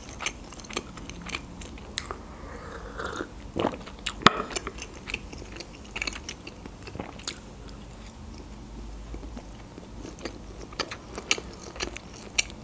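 Close-up chewing and biting of food, with scattered sharp crunches and mouth clicks and no speech.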